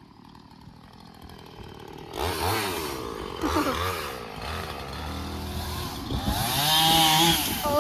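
Chainsaw engine starting up about two seconds in and running, its pitch rising and falling as it is revved.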